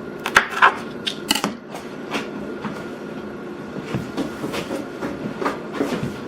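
Irregular clicks and knocks of kitchen work on a counter, several close together about half a second in and sparser ones after, over a steady low hum.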